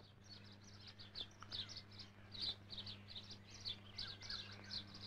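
Birds chirping faintly: a run of short high chirps, several a second, with a few lower notes mixed in, over a steady low hum.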